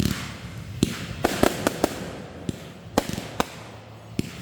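Fireworks bursting: an irregular series of about nine sharp bangs, some trailing off in a fading crackle.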